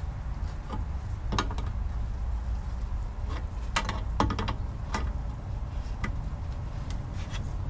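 A wrench tightening the nut that holds an air-conditioner condenser fan on its motor shaft: scattered, irregular metal clicks as the wrench works the nut, over a steady low hum.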